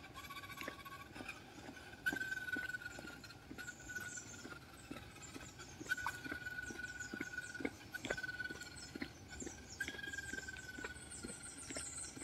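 Faint, intermittent high whine from a small electric RC car's motor and gears as it is driven downhill in short bursts, each whine sinking slightly in pitch, over steady footsteps on asphalt. A run of high chirps comes near the end.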